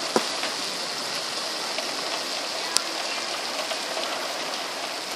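Heavy rain falling outside an open window, a steady hiss, with a single sharp tick a little before the three-second mark.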